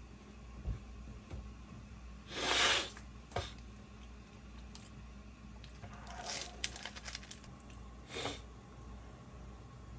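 A person with rhinitis taking sharp breaths through a congested nose, three short bursts, the loudest about two and a half seconds in. Light rustling and small clicks come around seven seconds.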